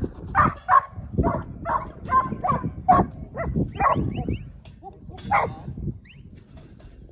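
Black-and-tan working yard dog barking at sheep in the yards: a run of sharp barks, about two a second, that stops about five and a half seconds in.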